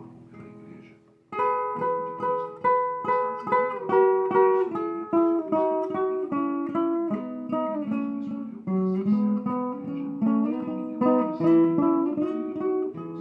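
Viola caipira played in a sequence of plucked and strummed chords, about two to three strokes a second, starting a little over a second in after a quieter passage. The chords step down in pitch about two-thirds of the way through and then climb back up.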